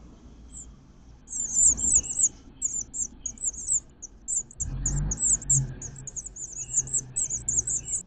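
House finch nestlings, about two weeks old, begging as a parent feeds them: rapid, very high-pitched chirps that start about a second in and continue in quick runs. A low thump about halfway through.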